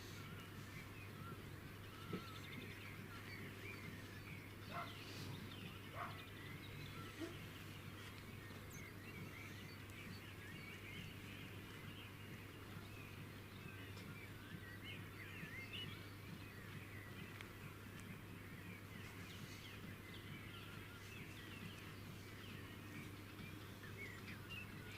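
Many small birds chirping and singing together, short overlapping calls throughout, over a steady low hum, with a few sharp clicks in the first quarter.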